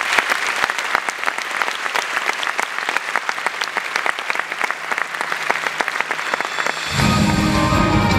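Audience applause, a dense patter of hand claps. About seven seconds in, recorded dance music comes back in with a heavy low beat.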